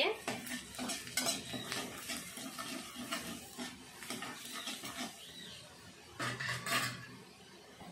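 Perforated steel skimmer spoon scraping and clinking against a steel wok while stirring chopped garlic frying in a little oil, with a light sizzle underneath. There is a louder clatter about six seconds in.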